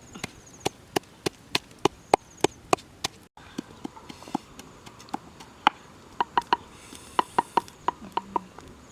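Chopping with a blade on wood, in sharp strikes. They come steadily at about three a second, break off suddenly, then resume more loosely with quick runs of two to four strikes.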